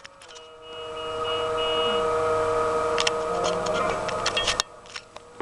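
A steady electronic drone of several held tones, swelling in over the first second and cutting off suddenly after about four and a half seconds.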